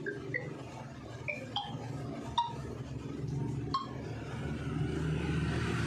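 Android TalkBack feedback tones from a Vivo Y31 phone: about half a dozen short chiming blips at differing pitches as a finger moves over the Settings list, the sign that the TalkBack screen reader is switched on. A steady low hum runs underneath, and a hiss grows near the end.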